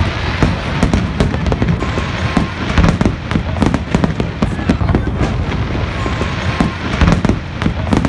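Aerial fireworks display: a dense, continuous barrage of bangs and crackles from bursting shells, with deep booms underneath.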